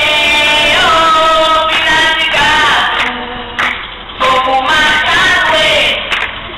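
A song sung to music and played loud over horn loudspeakers, the voices holding long notes.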